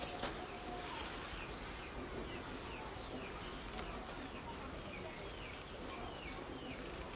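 A bird chirping over and over in short falling notes, two or three a second.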